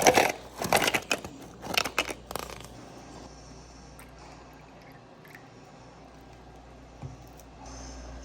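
Crisp crunching and crackling of humidifier frost being handled, in several loud bursts over the first two and a half seconds, then a faint hiss with a few small clicks.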